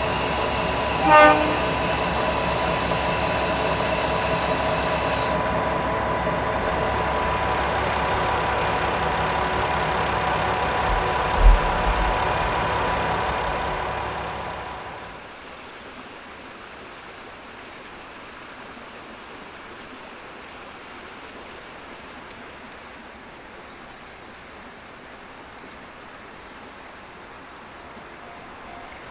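Diesel railcar idling at the platform with a steady hum, a short horn blast about a second in and one low thud about eleven seconds in. The engine sound fades out about fourteen seconds in, leaving a quieter steady outdoor background.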